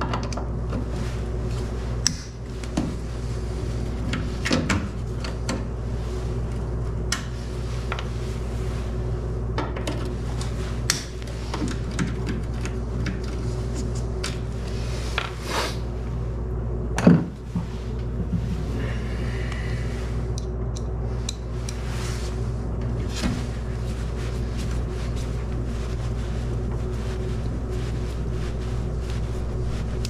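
Scattered small clicks and knocks of hand work on the plastic push-in retainer plugs of a pickup's tail-light mounting, with one louder knock about halfway through. A steady low hum runs underneath.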